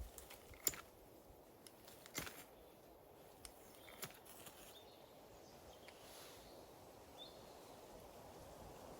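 Near quiet, broken by a few faint sharp clicks, the loudest under a second in, and a brief high chirp about seven seconds in.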